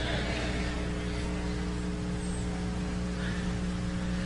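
A steady low hum made of several held tones at fixed pitches, over a faint even hiss.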